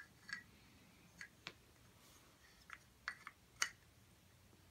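Faint, scattered clicks and light knocks of wooden toy train track pieces being handled and fitted together, about eight in all, the sharpest about three and a half seconds in.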